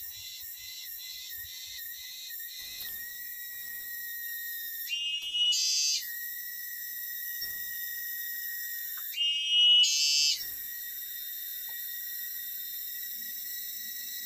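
A chorus of forest insects: a steady high-pitched buzzing that pulses rapidly for the first few seconds and then holds steady. Two louder, shriller calls rise over it, one about five seconds in and one about nine seconds in, each lasting roughly a second.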